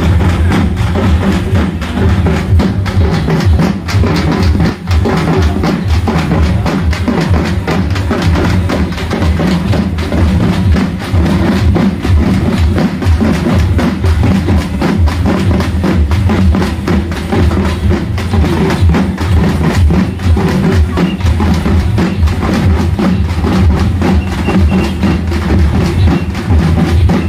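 Many large barrel drums (dhols), beaten together with sticks in a fast, continuous rhythm with heavy bass, with sharp stick clicks over the top.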